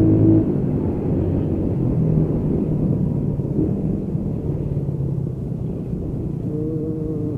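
Motorcycle engine running while riding, under a steady low wind rumble on the camera microphone.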